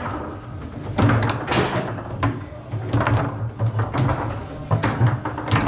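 Table football (foosball) in play: a run of sharp, irregular knocks and clacks as the ball is struck by the rod figures and hits the table.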